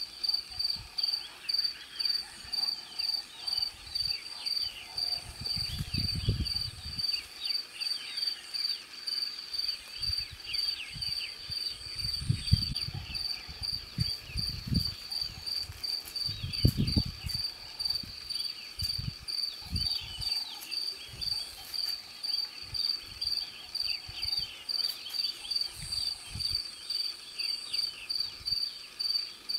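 Cricket chirping steadily at a high pitch, about two chirps a second, over a background of faint shorter chirps and calls. A few low rumbles come and go in the middle.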